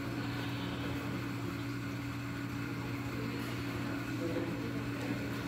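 Steady low electrical hum with an even background hiss: motor-driven equipment, such as an aquarium pump or the building's air handling, running without change.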